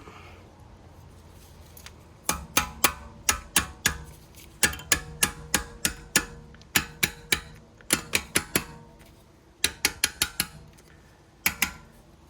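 Repeated sharp metal-on-metal taps and clicks as a flathead screwdriver works a brake caliper's steel anti-rattle spring into place, the spring ringing briefly after each hit. The taps come in quick runs of three to six, starting about two seconds in.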